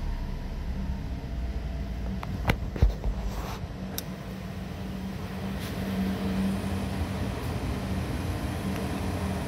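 2015 Chevy Sonic's 1.8-litre four-cylinder engine idling steadily after settling down from a rev. A few sharp clicks and a knock about two and a half to four seconds in, from the car's door being opened.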